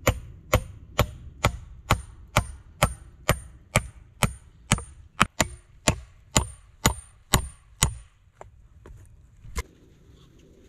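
Hatchet chopping wood on a log-round chopping block: steady strikes about two a second, each with a short high metallic ring. About eight seconds in they thin to a few lighter taps and stop.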